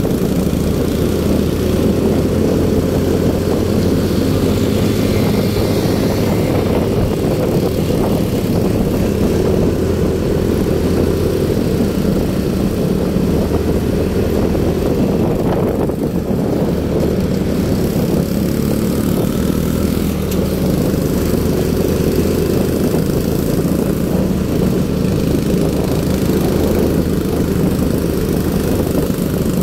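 Small motorcycle engine running steadily at cruising speed while riding, heard from the rider's own bike.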